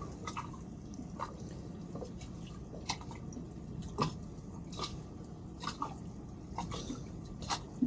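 Small waves lapping and slapping against the hulls of two boats tied side by side: irregular plops and splashes every half second or so over a steady low background.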